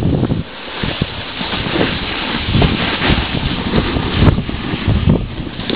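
Wind buffeting the microphone of a camera carried by a moving skier, a rushing noise that swells and eases in gusts, with skis scraping over packed snow underneath.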